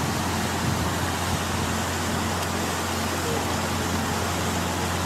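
Floodwater rushing along a street, a steady even rush with a low hum beneath it.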